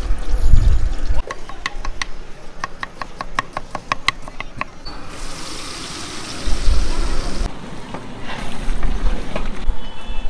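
Street-stall pav bhaji base cooking in a large aluminium pot of hot butter. A quick run of sharp clicks and taps comes about a second in, then a hissing sizzle about five seconds in as chopped onions are tipped in, with low thuds from the pot.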